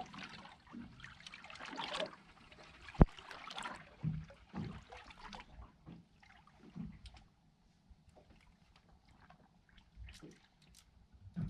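Water sloshing and lapping against a small boat's hull, with scattered small knocks and one sharp knock about three seconds in.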